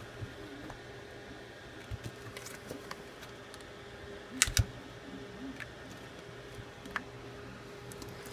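Scattered light clicks and taps of hands working an orange suction cup on the phone's glass screen and handling playing cards, with a louder knock about four and a half seconds in, over a faint steady hum.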